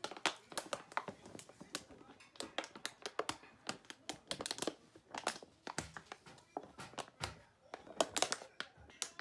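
Plastic drink bottle crinkling and crackling as a miniature schnauzer bites and paws at it, in quick irregular clicks and crunches.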